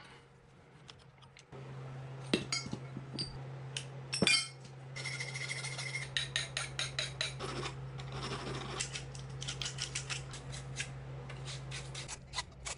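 Copper pipe and metal hand tools clinking and scraping: a couple of sharp metallic knocks in the first half, then a run of quick rasping strokes from about the middle on, as a hand file dresses the end of a cut copper pipe.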